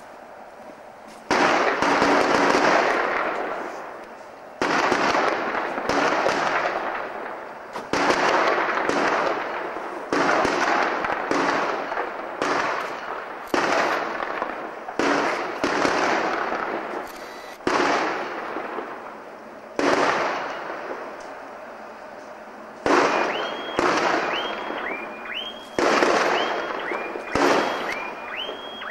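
A run of railway detonators (fog signals) going off one after another under a diesel locomotive's wheels: about fifteen sharp bangs, each ringing out for a second or two, the first coming a little over a second in. Over the last six seconds short high two-note horn blasts sound repeatedly on top of the bangs.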